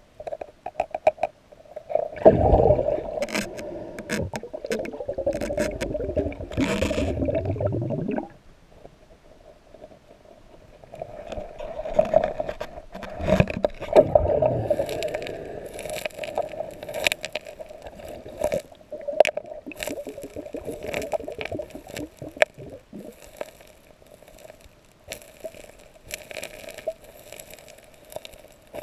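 Underwater sound of a gold sniper working a streambed by hand: gravel scraping and pebbles clicking against each other, over a steady hum. A loud, noisy stretch starts about two seconds in and cuts off suddenly around eight seconds. After that come many sharp clicks and knocks of stones.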